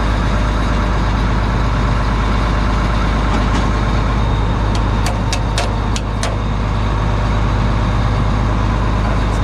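Combine's diesel engine idling steadily, with several sharp metal taps about five to six seconds in, pliers being used as a hammer.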